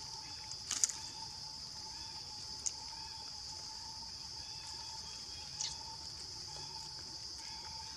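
Steady drone of insects in the trees, with a second, lower steady tone beneath it. Three short clicks cut through, the loudest about a second in.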